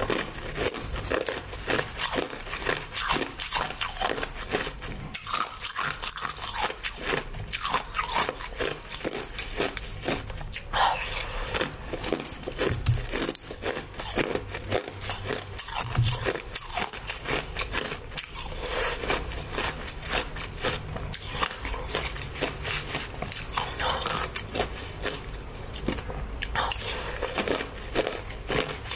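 Close-up chewing and crunching of a mouthful of crushed ice: a dense, irregular run of crisp crunches and crackles, with a wooden spoon scraping through the ice in the bowl now and then.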